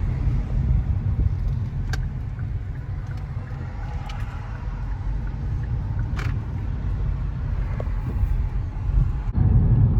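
Steady low rumble of a car driving in strong wind, road and wind noise heard from inside the cabin. Two faint clicks come through, about two seconds in and again about six seconds in.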